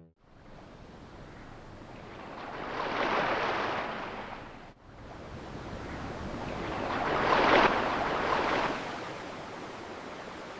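Surf rushing and breaking: two swells of noise, the second louder, with an abrupt break between them about halfway.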